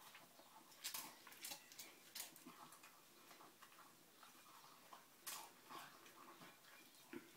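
Dog eating dry kibble from a bowl: faint, irregular crunches and clicks, with a few louder crunches.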